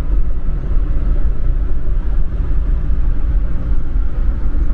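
Steady low road and engine rumble of a car driving at speed, heard from inside the cabin.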